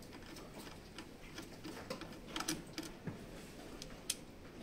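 Light, scattered clicks and taps of a screwdriver and fingers working on screws, wire connectors and the sheet-metal cover of an anesthesia machine's gas-monitoring module, with a sharper click about four seconds in.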